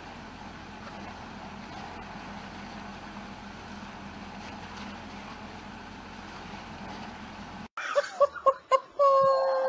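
Steady hum of a Mercedes SUV's engine running while the vehicle sits stuck in snow, cut off abruptly about eight seconds in by a man's loud wailing cries, ending in one long held wail.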